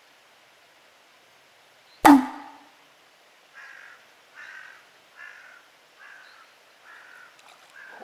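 A single sharp, loud knock about two seconds in, then a crow cawing six times in a steady series.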